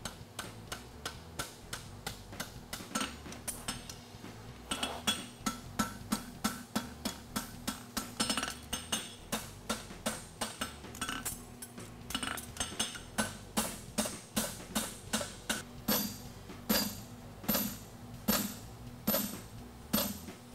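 Hammer blows on a red-hot steel horseshoe lying on an anvil, each strike ringing metallically. A steady run of about two to three strikes a second, becoming louder and more spaced out in the last few seconds.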